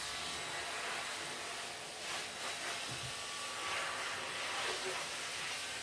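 Steady hiss, with faint rustling as a cotton pad is rubbed inside a dog's ear.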